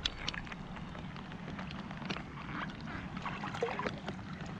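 Water splashing and dripping as a bass is released by hand over the side of a boat, with light rain pattering on the water and boat and a steady low rumble underneath.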